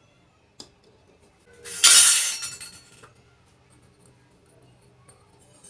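Miniature toy kitchenware clinking and rattling together: a single light click, then one loud jangling rattle lasting about a second.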